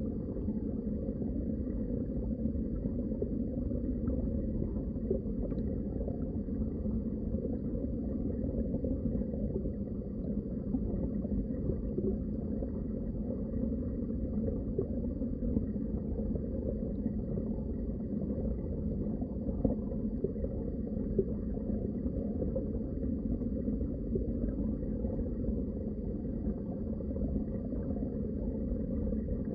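Steady, muffled underwater water noise: a low, even rumble with light gurgling and a few faint ticks.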